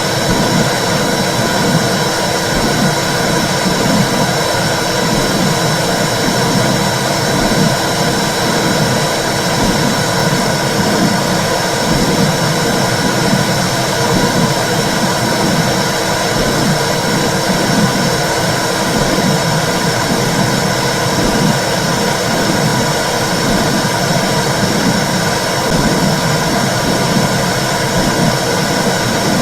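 Womb sound for soothing babies: a steady, loud whooshing noise like sound heard inside the uterus, with an uneven low pulsing running through it.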